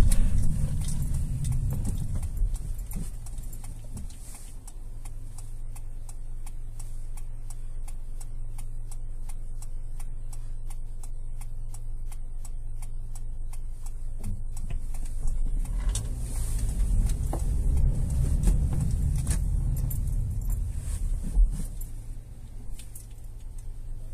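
Hyundai i30's 1.4-litre four-cylinder petrol engine and road noise heard from inside the cabin while driving: a steady low hum that grows louder for several seconds past the middle, then eases off near the end. Faint regular ticking runs underneath.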